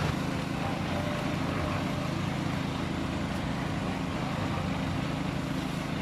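An engine or motor running steadily with a low, even drone.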